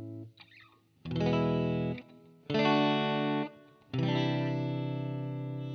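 Short electric-guitar music sting: three distorted guitar chords, the first two cut short and the third held and slowly fading.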